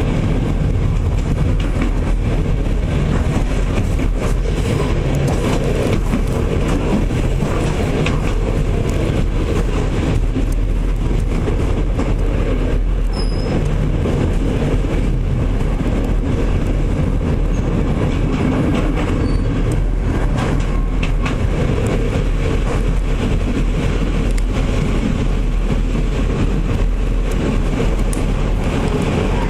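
Passenger train running along the track, heard from inside the carriage: a steady rumble of wheels and running gear.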